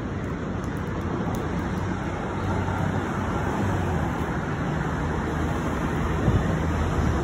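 City street traffic: a steady hum of motor vehicles and tyres on the road. A vehicle engine's low hum grows a little louder in the second half.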